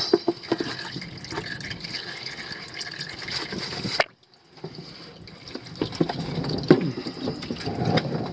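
Transfer case fluid pouring from a plastic bottle into a transfer case fill hole, with a brief pause about four seconds in; this is the refill, up to the level of the fill plug.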